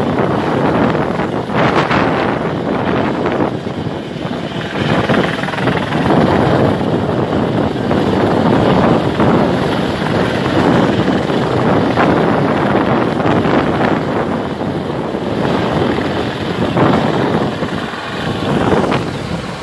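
Helicopter flying overhead, a continuous rotor and engine noise that swells and eases a little.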